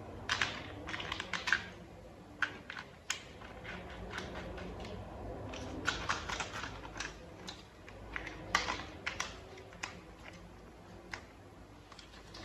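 Small plastic toy parts clicking and clattering as they are handled and fitted together, in irregular bursts of light sharp clicks.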